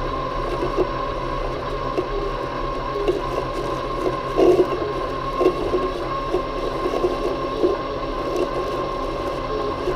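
Worx Landroid M robotic lawn mower running, its motors giving a steady whine, with irregular knocks and rustles as it moves across the lawn, the loudest cluster about four and a half seconds in.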